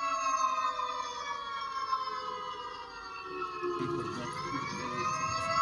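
A siren wailing: its pitch falls slowly for about four seconds, then turns and starts to rise again. A low rumbling noise joins in under it over the second half.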